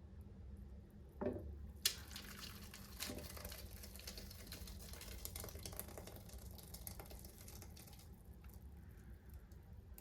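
A knock, then a sharp click, followed by several seconds of water running and splashing, crackling with small drips, that fades away near the end.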